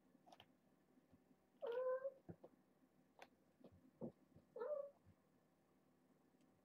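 Kittens meowing: two short meows, about two seconds in and again just under five seconds in, with a few soft knocks between them.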